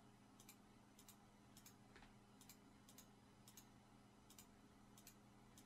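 Faint computer mouse clicks, a steady run of about one or two a second, many heard as a quick press-and-release pair, as objects are selected one after another in a list. A faint steady electrical hum lies under them.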